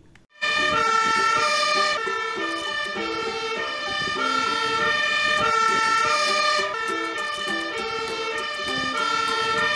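Fire engine's two-tone siren sounding, switching back and forth between a higher and a lower note, starting about half a second in.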